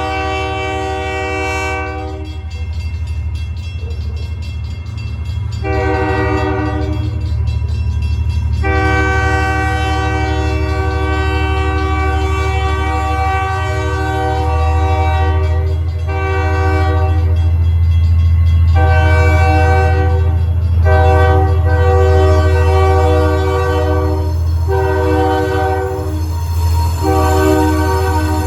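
American freight train's diesel locomotive sounding its multi-note air horn in repeated blasts, several of them long, as a warning for a level crossing. Under the horn runs the locomotive's steady low engine rumble, which grows louder about halfway through as it draws close.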